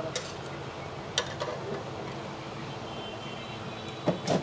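Steady hum of street background noise, broken by a few sharp clicks and taps: one just after the start, two about a second in, and two more near the end.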